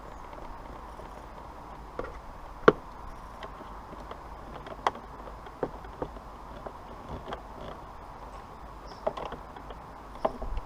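Scattered clicks and knocks of hand tools and car interior parts being worked, about nine in all, one sharper knock a little under three seconds in, over a steady background noise.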